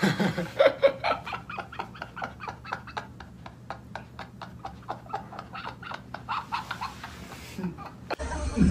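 A young man laughing hard, a long run of quick laugh pulses at about four or five a second, rising and falling in strength. Near the end it cuts to louder laughter and talk.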